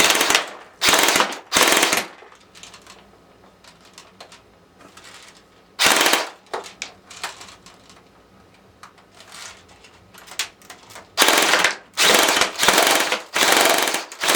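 Crosman Pulsar 72 airsoft electric gun firing full-auto on an 11.1 V LiPo battery, its gearbox cycling fast in bursts: three short bursts at the start, one about six seconds in, and sustained firing from about eleven seconds in. Faint clicking fills the gaps between bursts. The cheap magazine can't keep up with the rate of fire.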